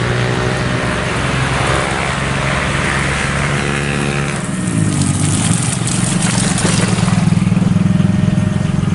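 Diesel-electric locomotive engine running as the train approaches. About halfway through its note changes and the sound grows louder.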